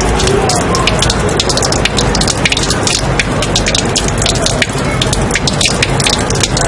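Steady rain falling on a hard surface, used as a white-noise track: a constant hiss with many sharp drop clicks scattered irregularly through it.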